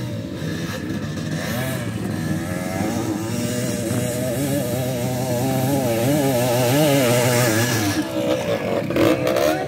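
Dirt bike engine revving under heavy load as the bike is pushed and ridden up a steep dirt climb, its pitch wavering quickly up and down and growing louder, then dropping away about eight seconds in.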